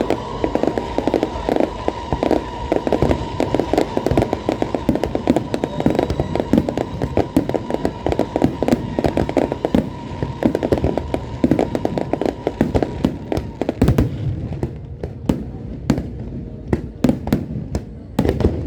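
Fireworks going off in a dense, rapid string of crackling bangs, thinning after about fourteen seconds to sparser, separate bangs. A steady high tone runs under the crackle until the thinning.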